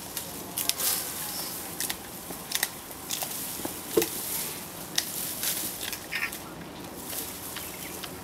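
Giant panda chewing and crunching bamboo stalks: irregular crisp snaps and cracks, one or two a second.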